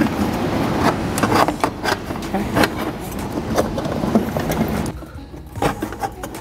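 Irregular clicks, knocks and scrapes of a plastic intake pipe being worked into place against the engine-bay plastics by hand.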